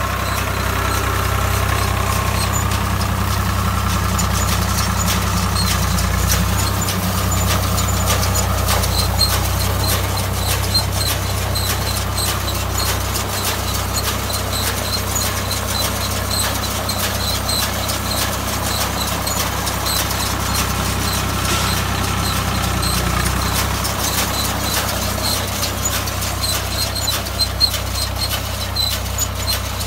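Swaraj 744 XM tractor's diesel engine running steadily, with a light regular ticking over it.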